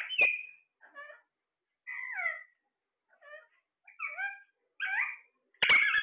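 Caged parakeets calling: about seven short, squawky calls with brief silences between, several sliding downward in pitch. The loudest call comes just before the end.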